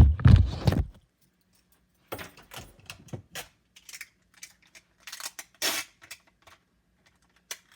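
Handling noise. Heavy bumps in the first second, then a run of small clicks and knocks. Around five and a half seconds in come two short ripping noises, like adhesive tape being pulled off a roll.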